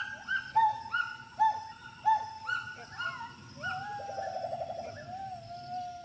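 Gibbon calling: short hooting notes, about two a second, each rising and falling, then a longer note about halfway through that wavers in a fast trill before steadying.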